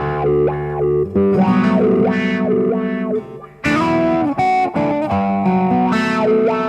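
Acoustic guitar with a K&K pickup played through a pedal board into the Elite Acoustics D4-8 acoustic amplifier, strummed chords and picked notes ringing out with effects on the sound. The chords change about once a second, with a short break a little after three seconds before a new strum.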